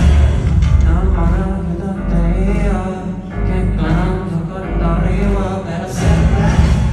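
Live stadium concert music heard from the stands: a male vocal with vibrato over heavy bass. The full band comes back in louder about six seconds in.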